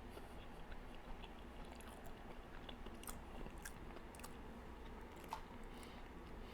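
Faint chewing: a mouthful of chocolate cake being eaten, with scattered small wet mouth clicks.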